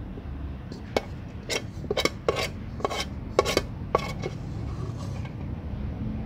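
Metal spoon clinking and scraping against a dish of food, a quick series of sharp clinks from about one second in to about four seconds in.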